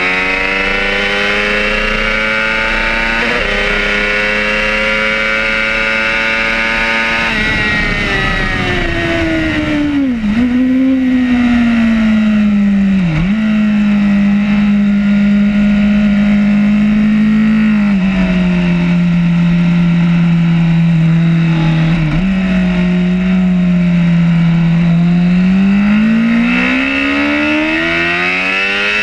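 Racing superbike engine heard from on board, revving hard and climbing in pitch with two upshifts in the first seven seconds. Then the throttle closes, the note dips sharply twice, and it holds a steady lower pitch for several seconds before climbing hard again near the end as the bike accelerates.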